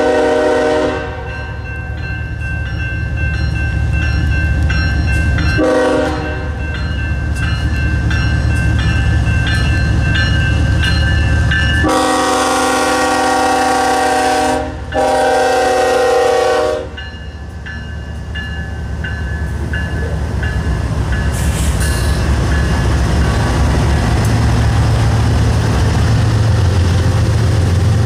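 Diesel locomotive horn sounding several blasts: one ending about a second in, a short one about six seconds in, then two long blasts close together midway. Under them runs the steady low rumble of the passing train's diesel engines.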